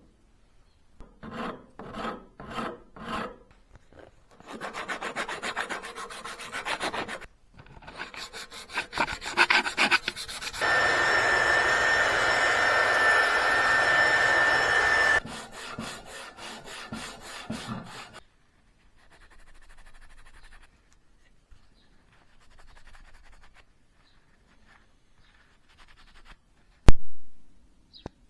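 Hand-abrasion work on hand plane parts: repeated rubbing and scraping strokes, some evenly spaced, with a longer, louder stretch of steady scraping in the middle. A single sharp click near the end is the loudest sound.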